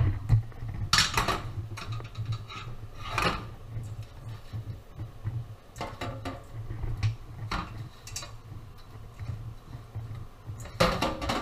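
Kitchen clatter: pots and utensils knocked and scraped in several short clatters, the loudest near the end, over a steady low hum.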